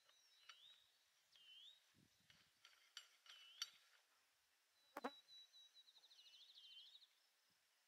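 Faint outdoor quiet with a bird giving several short swooping calls and a brief trill about six seconds in, and a few light metallic clicks from handling the rifle and its suppressor, the sharpest about five seconds in.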